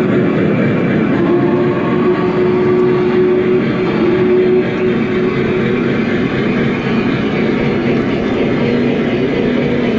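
Lionel O gauge freight cars rolling past close by on three-rail track: a steady rumble and clatter of wheels on rail. A faint steady tone is held through the first half, and a lower one comes in near the end.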